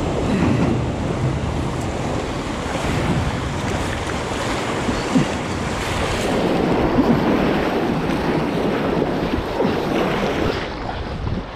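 Wind rushing over the microphone, with water sloshing and splashing around a kayak on the move.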